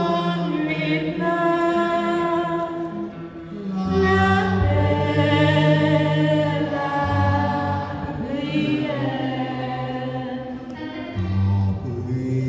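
Church choir singing a hymn in long, held notes, with deep low voices under the melody.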